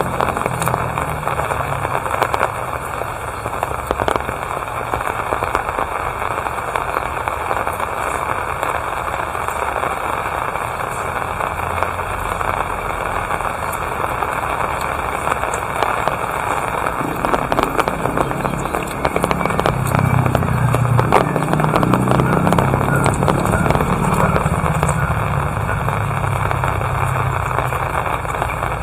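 Steady rain falling, with many close drop hits crackling on surfaces. A motor vehicle's engine hums low in the background for a few seconds past the middle, then fades.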